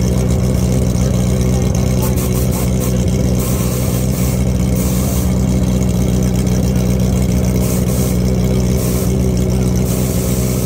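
An engine running loud and steady at a constant speed, its pitch unchanged.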